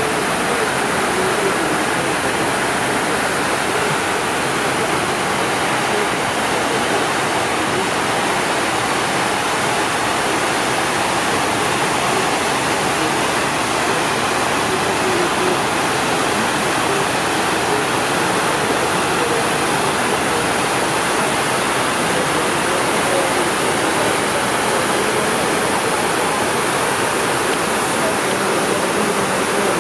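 Steady rush of water falling down the stone walls of the 9/11 Memorial's reflecting pool into the basin below.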